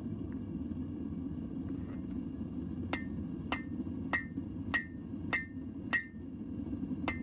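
Hand hammer striking hot steel on an anvil, a series of ringing blows about one every 0.6 seconds starting about three seconds in, over a steady low roar.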